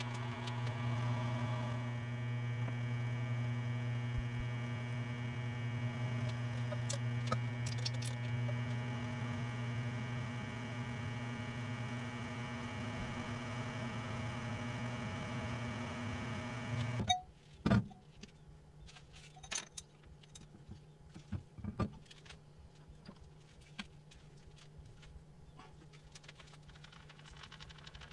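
Benchtop milling machine running while it drills through a steel plate, a steady motor hum with a layered tone. It shuts off abruptly about two-thirds of the way through, followed by a few knocks and clinks of metal.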